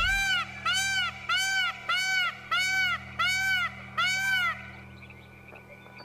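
Indian peafowl (peacock) calling: a series of seven short, loud honking calls about two-thirds of a second apart, each rising and falling in pitch, ending about four and a half seconds in.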